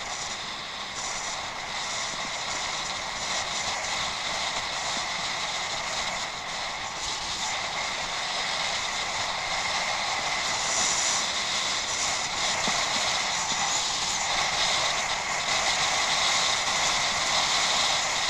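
Bicycle ridden over rough unpaved ground: a steady rushing noise of tyres and rattling bike parts, gradually getting louder.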